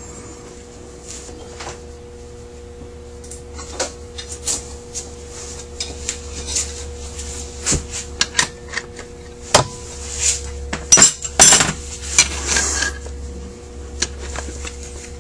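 Small metal carburetor parts and hand tools clinking and clicking as they are handled. The clicks are sparse at first, start a few seconds in, grow busier, and turn into a short run of quick rattling clinks near the end.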